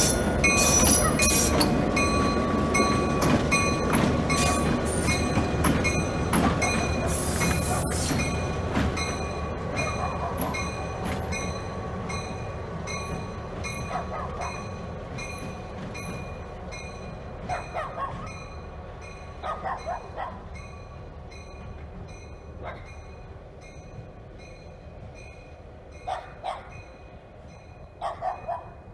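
1951 EMD diesel locomotive passing slowly, its engine running and wheels rolling over the rails, with its bell ringing steadily. The sound fades as it moves away.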